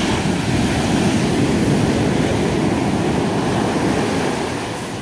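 Ocean surf: a wave breaking at the shoreline and its whitewater rushing up the sand, a loud, even rush that holds for about four seconds and eases off near the end.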